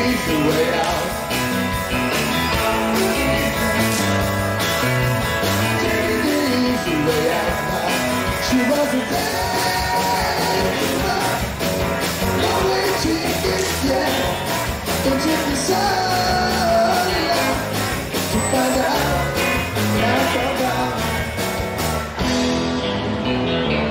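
Live rock band playing, with electric guitars and drums and what may be a singing voice.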